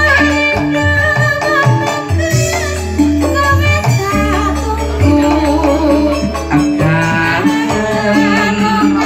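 A sinden, a Javanese female singer, singing through a microphone over loud amplified accompaniment with a steady bass line and light percussion.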